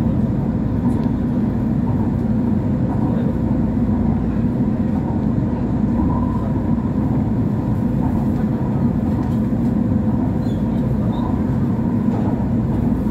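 Busan-Gimhae light rail train running at steady speed, heard from inside the car: a continuous low rumble of wheels on rail with a faint steady whine over it.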